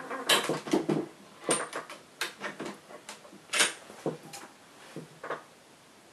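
Metal hook pick clicking and scraping inside the keyway of a VITA five-pin euro cylinder: irregular clusters of sharp clicks, a few with a brief high metallic ring. The clicking is the pick slipping off part of the keyway, not pins setting.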